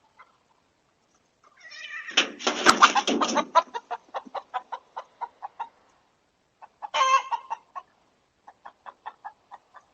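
Chicken alarm-calling: a loud squawk about two seconds in breaks into a fast run of short clucks, then a second squawk and more clucks near the end. This is the cackling of a hen alarmed by a fox.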